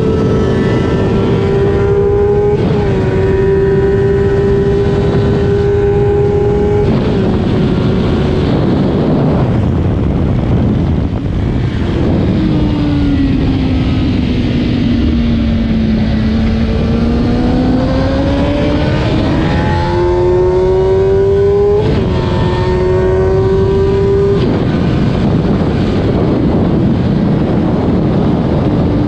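Stock 2008 Kawasaki ZX10R inline-four sportbike engine at full throttle on track, its pitch climbing and dropping with upshifts about two and a half and seven seconds in. Through the middle the revs sink slowly for a corner and then build again, with three quick upshifts in a row near the end, all over steady wind rush on the onboard microphone.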